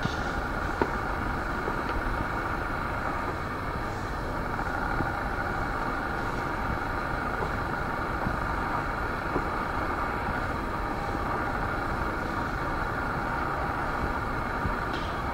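Steady outdoor background rumble with a faint hum and a few scattered faint ticks.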